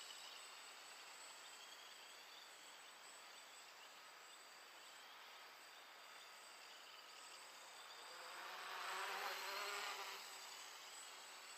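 Deadcat quadcopter's four Multistar 2209-980KV brushless motors spinning 10x4.5 props, a faint buzz while it flies far off. About eight seconds in the buzz swells for a couple of seconds as the quad comes in close, its pitch wavering with the throttle, then drops back.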